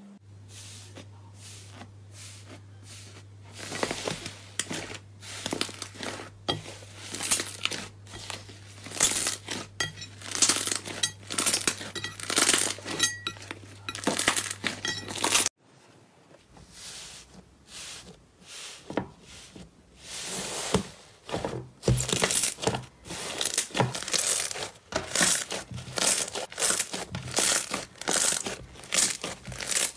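Hands squeezing and kneading slime, giving dense, rapid crackling and squishy popping. A steady low hum runs under the first half and cuts off abruptly about halfway through.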